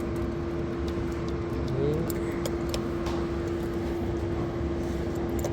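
Toyota Passo Moda's engine idling steadily after a tune-up, with a constant tone over a low rumble.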